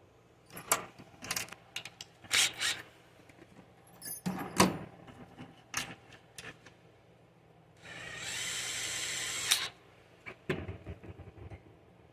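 Clicks and knocks of parts and tools being handled, then a small power drill run for under two seconds about eight seconds in, followed by a few more knocks.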